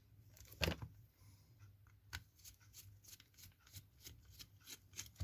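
Faint small clicks and ticks of a Phillips screwdriver working a screw out of a soldering iron, with one louder click under a second in.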